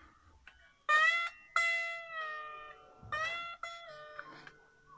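Epiphone Les Paul Special solid-body electric guitar played unplugged: four chords picked about a second apart, each left to ring and fade, with a few soft plucks between. It is being played to listen for an intermittent buzz that the player was chasing by tightening the pickguard screws.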